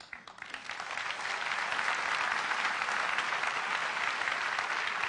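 Audience applauding a keynote demo, building up over about the first second and then holding steady.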